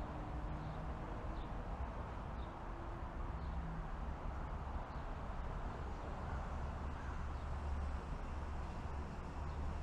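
Steady low outdoor rumble of city traffic, with faint ticks about once a second.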